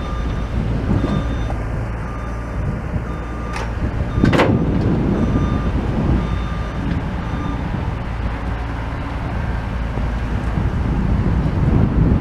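Steady low engine rumble of demolition machinery working, with two sharp knocks about four seconds in.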